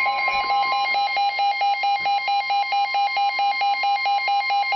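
An electronic telephone ringer warbling in rapid, even pulses over the steady single-pitched warning tone of a weather alert radio.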